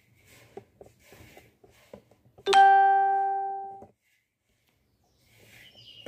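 A single bell-like chime, like a doorbell ding, rings out about two and a half seconds in, dies away over about a second and cuts off suddenly. Before it come faint small clicks and rubbing of hands mixing semolina in a brass plate.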